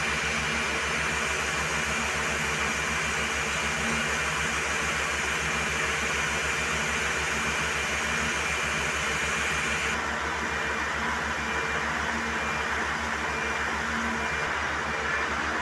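High-power air compressor running steadily during borewell flushing: a loud, even rush of air and water over a low, fast, pulsing engine beat. The high hiss dims about two-thirds of the way through.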